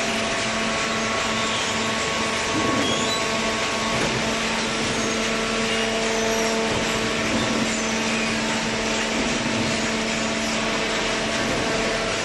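Hydraulic baler's electric motor and pump running: a steady hum with an even hiss over it.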